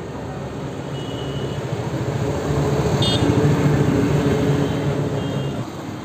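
Road traffic: a motor vehicle's engine swells as it passes close by and fades again, with a brief high beep about three seconds in.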